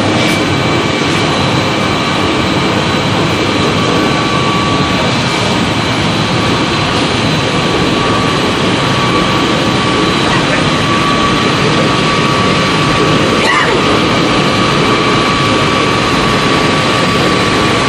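PP/PE film two-stage water-ring pelletizing line running: a loud, steady machinery drone from the extruders, motors and pelletizer, with several steady high whines over it.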